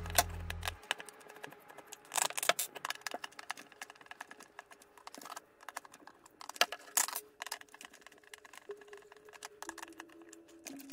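Screwdriver turning small screws out of a black mounting plate on a cardboard box: irregular clicks, ticks and light scrapes of the tip in the screw heads, with louder bunches about 2 and 7 seconds in. Background music cuts off about a second in.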